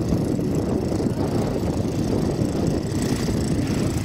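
Engine of a riding rice transplanter running steadily as the machine works, a continuous low rumble without pauses.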